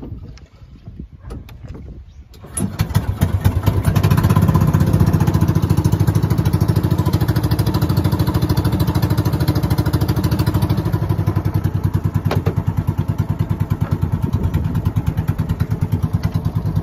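Outrigger boat's engine starting about two and a half seconds in, after a few light knocks, then running steadily with a fast, even putter.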